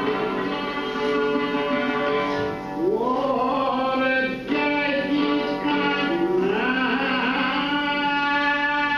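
An early 20th-century Greek record plays back: a male singer's ornamented, gliding vocal line over lauto and string accompaniment, with the voice coming in about three seconds in.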